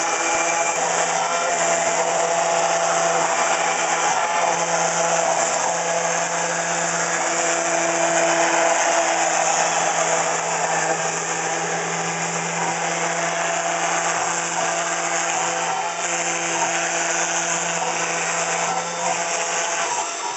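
Hobby CNC mill's spindle motor running steadily as its bit cuts scored lines into cardboard. Lower hum tones underneath shift and change every few seconds as the head moves across the sheet.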